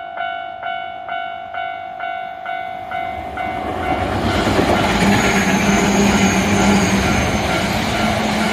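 Level-crossing warning bell ringing about twice a second. About four seconds in, a passing local commuter train drowns it out with a rising rumble of wheels on rails and a steady low hum.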